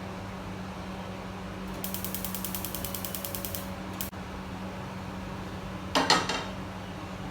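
A steady low hum, like a kitchen fan, runs throughout. Over it, a fast run of clicks lasts about two seconds, a single sharp click comes near four seconds in, and a short, loud clatter, like utensils or a pan, comes about six seconds in.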